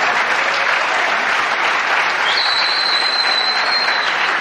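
Live theatre audience applauding, a steady even clapping. About two seconds in, a thin, high, steady whistle joins and holds.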